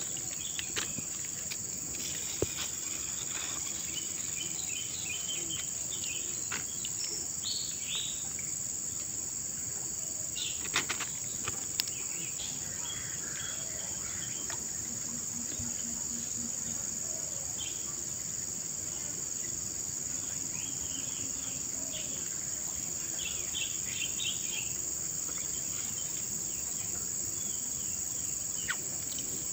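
Steady high-pitched drone of insects calling by the riverside, with scattered short chirps and a few sharp clicks about eleven seconds in.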